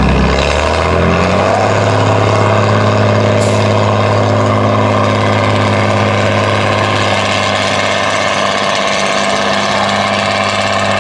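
Tatra 813 8x8 truck's diesel engine, its revs climbing over the first second and a half and then held steady and high as the truck crawls along the steep dirt slope. A brief hiss about three and a half seconds in.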